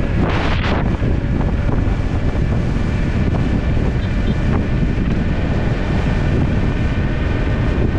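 Wind rushing over a GoPro microphone while riding a Kaabo Mantis King GT dual-motor electric scooter at speed, with a louder gust about half a second in. Faint steady high tones run under the wind.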